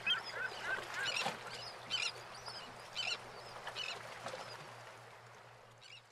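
Water birds calling again and again in short squawking calls over a steady hiss, slowly fading out near the end.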